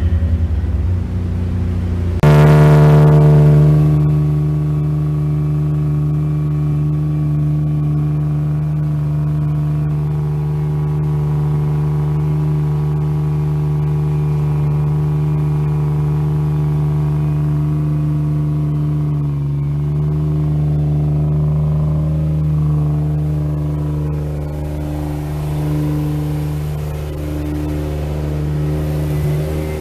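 Infiniti G35's 3.5-litre V6 running on a chassis dyno, starting abruptly about two seconds in and then holding at a constant engine speed as a steady, even-pitched drone. A faint rising whine comes in near the end.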